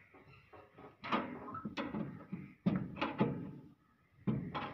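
Metal clanks and knocks from parts inside a combine harvester's threshing unit being handled and fitted, a handful of irregular hits with the loudest about a second in and near the end.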